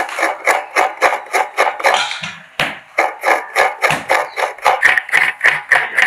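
Halved fresh coconut scraped by hand against the serrated metal blade of a traditional coconut grater, in quick, even strokes about three a second.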